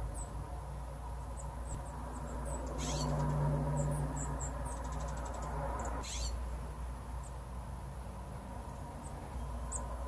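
Chickadees giving short, high chirps scattered throughout, with two brief harsh, buzzy calls about three and six seconds in and a quick run of ticks between them. A low, steady hum runs underneath.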